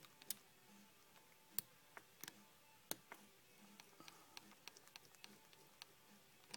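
Faint small clicks and ticks from an ETA 2836 automatic movement's keyless works as its crown is turned to wind the hands round and check the date change. Three sharper clicks come just over a second apart in the first three seconds.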